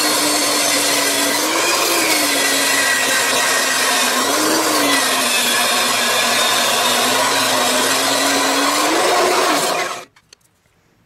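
Bandsaw running and cutting through the plastic casing of a 6-volt lantern battery, a loud steady whir with a hum that wavers slightly in pitch. The blade is worn and missing teeth. The sound cuts off abruptly about ten seconds in.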